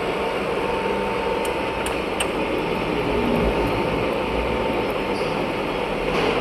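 Baoji CS6266B engine lathe running under power, its spindle and gearbox giving a steady mechanical whir with a thin constant whine. A few light ticks come about two seconds in.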